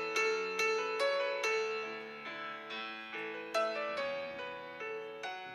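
Background music: a gentle piano melody of struck notes that ring and fade.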